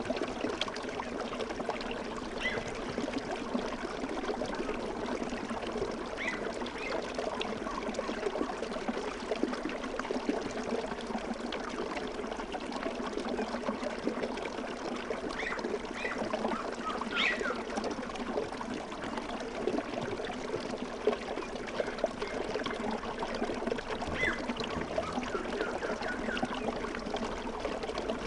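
Running water of a small stream, a steady even sound with brief higher-pitched blips scattered through it.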